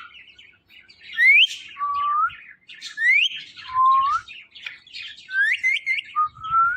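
Pet parrot whistling a repeated two-part call: a quick rising whistle followed by a lower, held note that bends up at the end, about every second and a half. Near the end the rising whistle is followed by a few short, quick rising notes.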